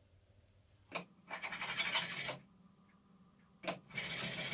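Plane iron in a honing guide pushed along a sharpening stone to hone its bevel. Twice there is a click as the guide is set down, then about a second of steel scraping on the abrasive.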